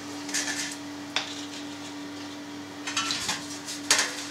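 Salt sprinkled by spoon onto cheese in a plastic mould, heard as two short grainy hisses, over a steady low hum. Near the end a perforated stainless steel tray knocks against the table and the mould.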